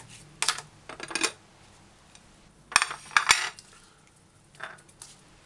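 Kitchen knife cutting a tomato on a plastic cutting board: a handful of separate short knocks and clinks of the blade on the board, the sharpest a little before three seconds in.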